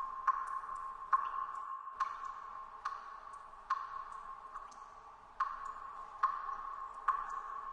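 Water dripping steadily, about one drop a little under every second, each a sharp tick followed by a short ringing tone, with fainter small drips in between.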